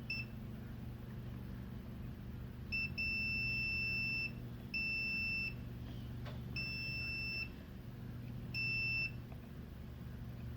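Multimeter continuity beeper sounding in a short blip and then four steady beeps of uneven length, as the probes touch points on a TV power supply board. Each beep signals a low-resistance path between the probed points, the reading that is being hunted for as a short around the MOSFETs. A low steady hum runs underneath.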